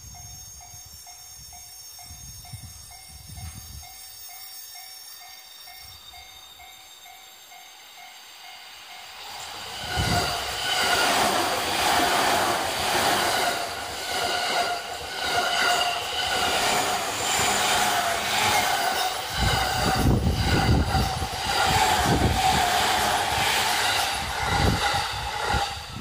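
A level-crossing warning bell rings about twice a second. About ten seconds in, a JR electric commuter train passes close by, loud over the bell, and a deeper rumble joins in around twenty seconds in.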